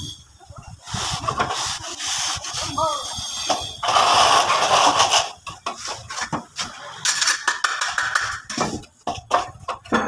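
A plastering trowel scraping and rubbing over fresh cement render in several strokes, the loudest about four seconds in. It is followed by a quick run of short scrapes and taps near the end.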